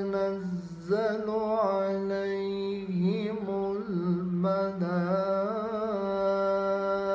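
Solo voice chanting a Quran verse in the slow melodic tajweed style, the words "tatanazzalu ʿalayhim" stretched into long held notes with wavering ornaments. There is a short breath pause just before one second in.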